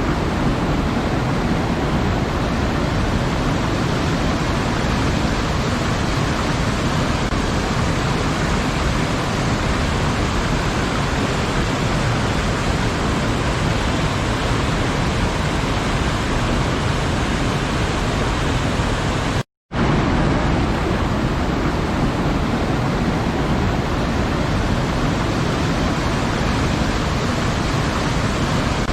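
Steady, even rush of a waterfall, with a brief dropout to silence about two-thirds of the way through, where the recording's loop is joined.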